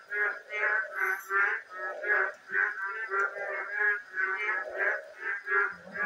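Frog croaking over and over in a steady rhythm, about two to three croaks a second.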